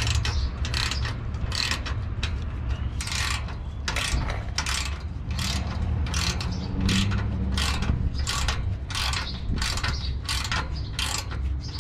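Hand socket ratchet on an extension clicking in quick repeated strokes, about two to three a second, as it tightens the bolt of a V-band clamp on an exhaust pipe. A steady low rumble runs underneath.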